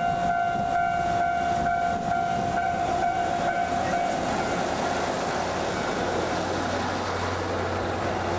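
Level-crossing alarm ringing with an even pulsing two-tone sound that fades out about four seconds in, as a diesel railcar train passes close by. The rumble of wheels and the low hum of the railcar engines grow louder in the second half.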